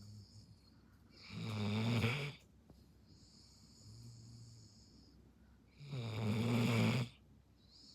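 A Belgian Malinois snoring while half asleep: two loud snores, each about a second long and about four and a half seconds apart, with quieter breaths between them.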